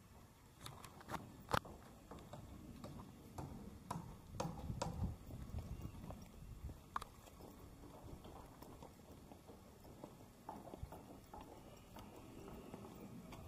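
Footsteps on paving: faint, irregular clicking steps, some in runs about half a second apart, over a low rumble.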